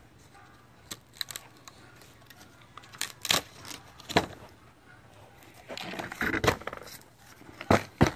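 Wood knocking and scraping as the freshly milled cedar slab and guide boards are handled: a few sharp knocks, a longer scrape about six seconds in, then two more knocks near the end.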